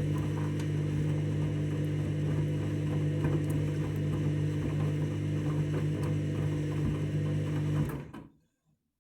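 Candy washing machine running its main wash: a steady motor hum with a few faint clicks, which cuts off suddenly about eight seconds in.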